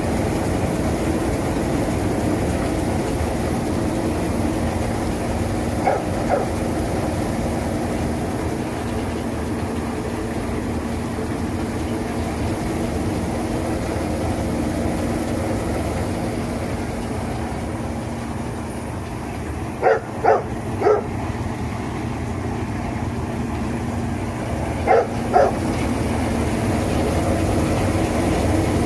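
Brush roller onion peeling machine running steadily, its rollers tumbling onions and scrubbing off the skins, with a constant hum. A few short, sharp yelps come in groups of two or three, mostly about two-thirds of the way through.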